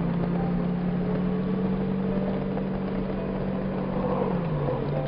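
Touring motorcycle engine running at a steady cruise over a constant rush of wind and road noise; its note drops a little about four and a half seconds in.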